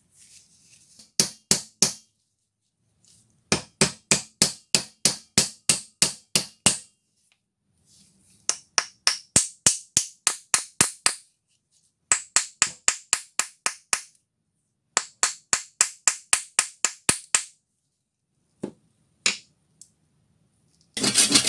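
Quick runs of sharp hammer blows, about four a second with short pauses between the runs, driving a wooden wedge into the eye of a club hammer head to lock the new wooden handle. Near the end a saw starts cutting off the wedge's end.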